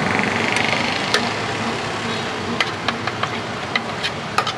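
Steel ladle and spoon clinking against steel pots: a string of short, sharp metallic clicks, most of them in the second half, over steady street traffic noise.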